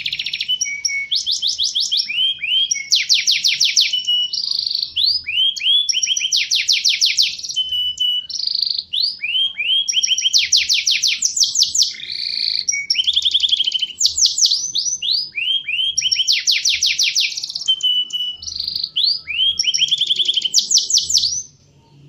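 Domestic canary singing a long, unbroken song of rapid high trills and rolling runs of repeated notes, stopping suddenly near the end.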